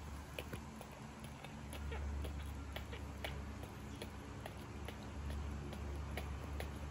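Irregular small clicks and ticks, a few a second, over a steady low rumble.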